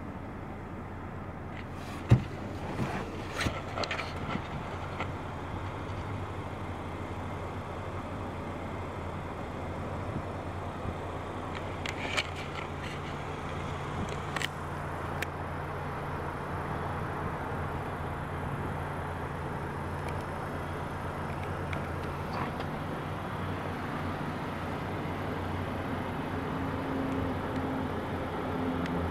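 2014 Honda Accord's engine idling in Park, a steady low hum heard from inside the cabin, with a sharp click about two seconds in and a few lighter clicks.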